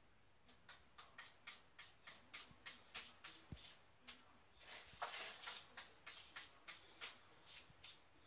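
Cat scratching in its litter box: paws raking the litter in a run of short scrapes, about three a second, with a quicker, louder flurry about five seconds in.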